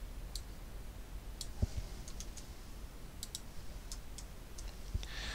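Light, irregular clicks of a computer mouse and keyboard, about a dozen in a few seconds, over a faint steady hum, with one soft thump about a second and a half in.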